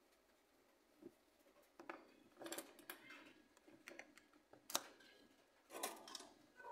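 Faint scratches and light clicks of small parts being handled: a small stick dabbing soldering flux onto a circuit-board pad and wire end, and the board and wire shifting against the plastic foot-pedal case. One sharper click comes about two-thirds of the way through.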